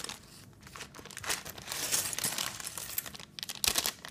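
Thin plastic LEGO polybag crinkling as it is handled, a dense run of fine crackles that gets louder after about a second.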